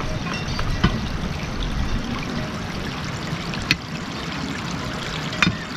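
Water running steadily, with a few short clicks or knocks over it.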